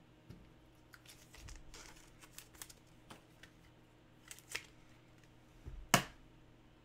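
Trading cards and clear plastic being handled on a tabletop: light rustling and small scattered clicks, with one sharp tap about six seconds in.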